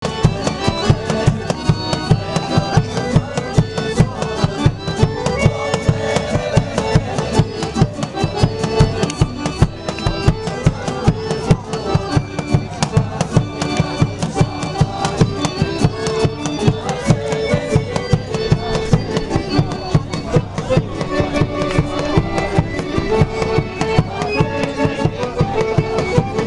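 Live Balkan folk music for a circle dance: drum strikes on a quick, steady beat under a melody played on string and other instruments.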